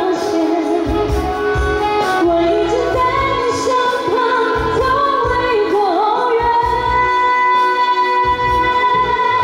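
A woman singing a pop song live into a microphone, backed by amplified keyboard and saxophone over a steady low beat; a long held note sounds over the last few seconds.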